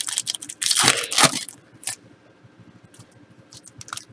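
Foil trading-card pack wrappers crinkling and cards rustling as they are handled: a cluster of short crinkles about a second in, another brief one shortly after, then light ticks near the end.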